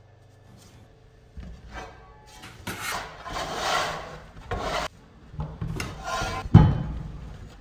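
Bench scraper scraping across a floured work table as it pushes and turns a ball of bread dough during shaping. There are two long scrapes, about three and six seconds in, with a dull thump partway through the second.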